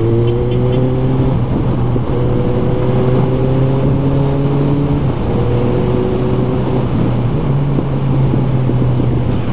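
Motorcycle engine running steadily under way, its tone rising slightly and briefly breaking twice, about a second and a half in and again about five seconds in, with wind rushing over the microphone.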